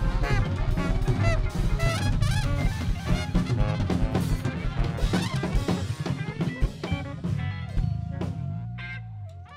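Live horn band of saxophones, trumpets and trombone over a drum kit, playing a busy, drum-driven passage. Over the last couple of seconds the drumming thins out and the band fades down to a single held horn note.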